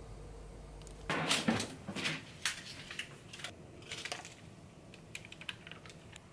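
Metal baking tray being pulled out of an oven: a run of clattering, scraping knocks for about three seconds, then a few lighter clicks.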